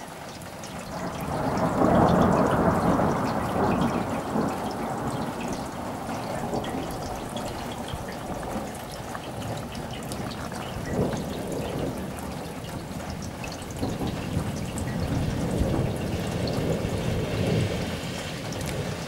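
Thunder rumbling in a thunderstorm, swelling to its loudest about two seconds in and slowly dying away, with a second, weaker roll near the end. Rain falls steadily throughout, with small drips and taps.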